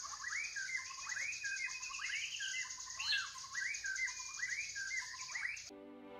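Birds chirping in a quick string of short rising-and-falling calls, about three a second, over a steady high hiss; it all cuts off abruptly near the end.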